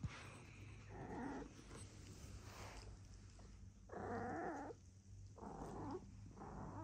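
A Shiba Inu giving short, low moaning whines, four of them: one about a second in, a longer and louder one around four seconds, and two close together near the end.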